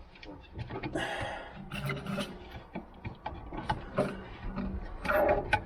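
Scattered sharp clicks and rustling from hands working on car audio wiring, fitting T-tap connectors onto the factory amp's subwoofer wires, with a brief scrape about a second in and a louder cluster of handling noise near the end.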